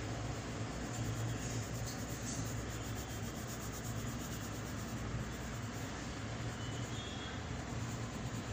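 Graphite pencil scratching and rubbing on drawing paper in quick, regular shading strokes, over a steady low hum.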